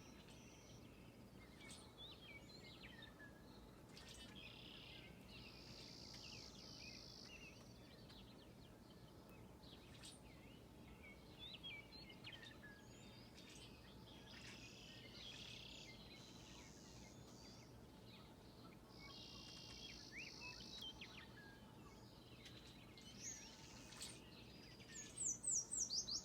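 Several songbirds singing together in a morning chorus: scattered faint chirps, whistled notes and buzzy trills, with a louder burst of quick, high, falling notes near the end.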